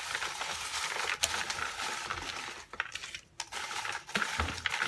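Folded paper slips rustling and clattering as a hand stirs them around in a plastic bowl, with a short pause about three seconds in.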